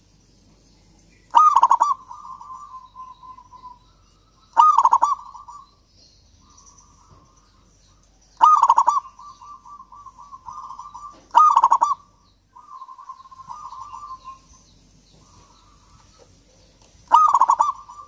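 Zebra dove (perkutut) cooing: five phrases a few seconds apart, each a loud first note followed by a run of softer, rapid rolling coos.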